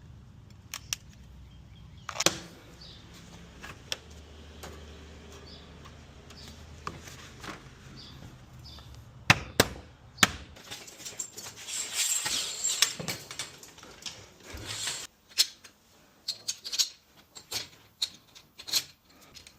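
Scattered knocks, clicks and rattles of hand tools and metal hardware being handled during garage door installation. A few loud knocks come about two, nine and ten seconds in. Around twelve seconds there is a stretch of hissing scraping, and near the end a quick run of sharp taps and clicks.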